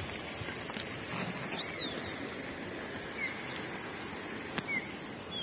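A bird giving a few short, high chirps, one arched and three brief falling notes spread over the seconds, over a steady outdoor hiss; a single sharp click comes about four and a half seconds in.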